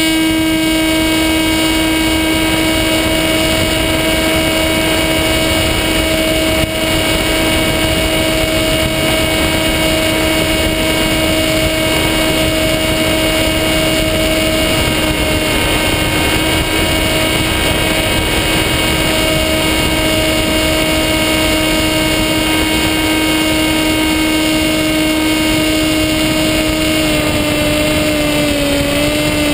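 Skywalker FPV plane's electric motor and propeller running at a steady high pitch, heard from the onboard camera over a steady rush of air. The pitch drops a little near the end.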